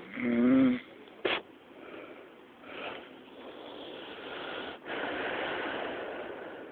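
Snoring in deep sleep: a loud, wavering pitched snore at the start, a short sharp snort about a second later, then a long wheezy breath through the second half.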